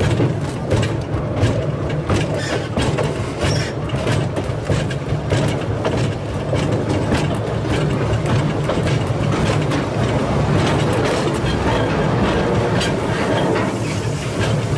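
Steady rumble of a moving narrow-gauge train carriage, with its wheels clattering and knocking irregularly over the track.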